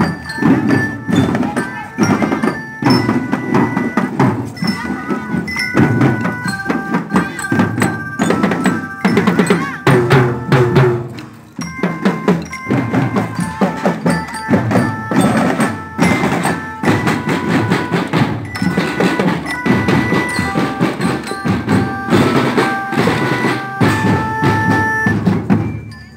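Children's marching drum band playing: Maxtone bass drums and snare drums beating a march while a marching glockenspiel (bell lyre) plays a melody of short bell notes over it. The playing dips briefly about halfway through.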